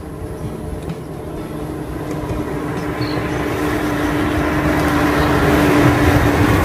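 An SUV approaching along the road, its engine hum and tyre noise growing steadily louder, loudest near the end.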